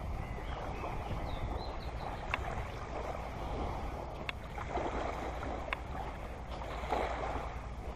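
Small waves lapping softly at the edge of a calm sandy, pebbly beach, swelling every couple of seconds over a low steady rumble, with a few light clicks.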